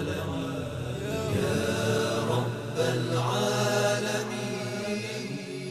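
Closing theme: Arabic devotional chanting by voice over a music bed, with long held, bending notes.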